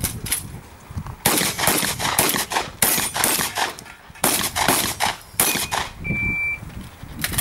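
A rapid series of shotgun shots fired in quick strings, each a sharp crack. About six seconds in, a short high electronic shot-timer beep sounds, followed by one more shot.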